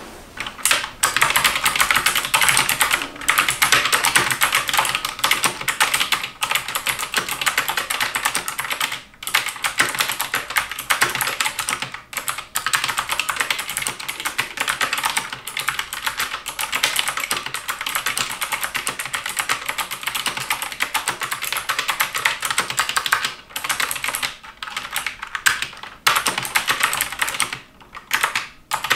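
Xenics Titan Optical V2 mechanical keyboard with Outemu optical blue (clicky) switches being typed on fast: a dense, continuous stream of clicky keystrokes with a few short pauses.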